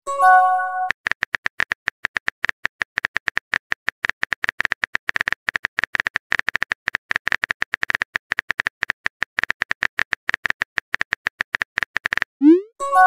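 Phone-keyboard typing sound effect of a texting-story animation: rapid clicks, many per second, for about eleven seconds. It opens with a short chime of a few tones and ends with a brief rising whoosh as the message is sent.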